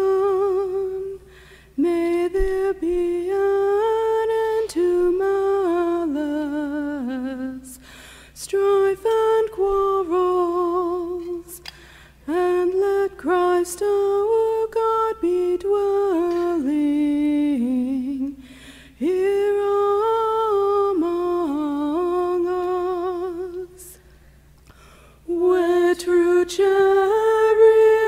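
A single voice sings a slow hymn melody with no instruments, in phrases of several seconds broken by short pauses, holding notes with a noticeable vibrato.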